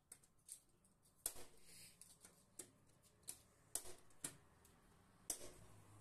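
Plastic DIN-rail terminal blocks clicking as they are snapped onto a metal mounting rail and pushed together: a series of sharp, irregular clicks, the loudest about a second in and near the end.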